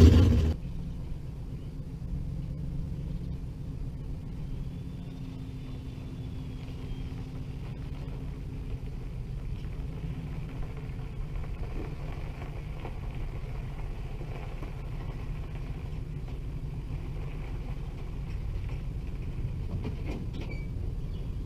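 A loud engine cuts off sharply about half a second in. After that a low, steady rumble of a distant car engine continues as the car is moved up onto a trailer, growing a little louder near the end.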